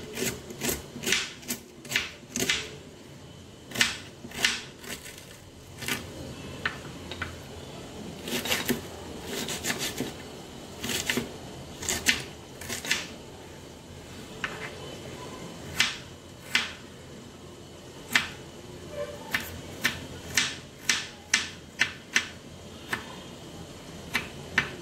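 Small kitchen knife chopping onion, then garlic, on a wooden cutting board: irregular sharp taps of the blade striking the board, some single and some in quick runs.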